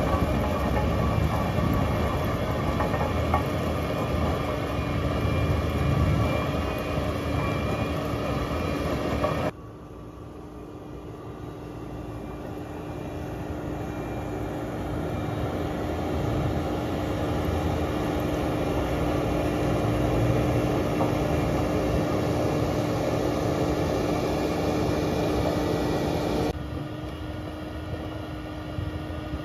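Bobcat T870 compact track loader running a CONETEKS 2.13 SF forestry mulching attachment, with engine and rotor noise over a steady tone. The sound drops suddenly about nine seconds in, builds back up, and changes abruptly again near the end.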